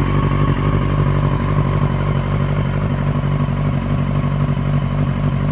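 1999 Yamaha YZF-R6's 600 cc inline-four idling steadily through an aftermarket stainless steel end can.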